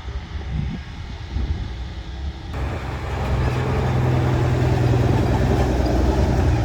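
A loaded dump truck's turbo-diesel engine labours in a low gear as the truck climbs out of the pit. About two and a half seconds in it becomes louder and holds a steady, heavy drone.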